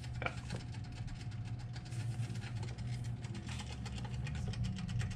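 Mechanical timer inside a late-1940s Toastmaster 1B9 pop-up toaster ticking rapidly and evenly, about ten ticks a second, running after the paddle has been pushed down and counting toward the pop-up.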